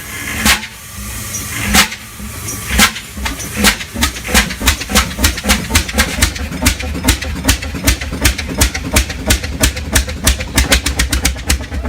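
Fairbanks-Morse two-cylinder two-stroke semi-diesel engine starting up. A few slow, sharp firing beats come first, then the beats settle into a rapid, even rhythm that keeps quickening as the engine gathers speed.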